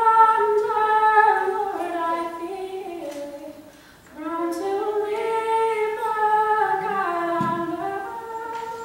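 A young woman singing solo, with no accompaniment heard, in two long held phrases separated by a brief breath pause about four seconds in.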